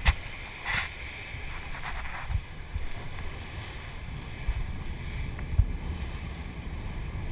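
Wind buffeting the microphone over the steady low rumble of a sport-fishing boat under way, with water rushing along the hull and a few sharp thumps.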